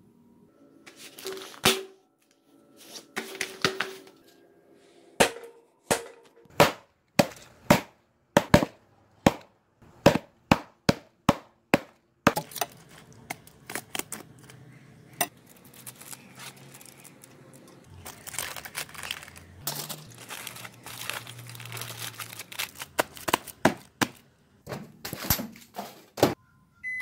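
Envelope paper rustling, then a quick run of a dozen or more sharp, loud strikes of a claw hammer on a plastic credit card laid on a wooden stump. Later a microwave oven's low hum, with crackling.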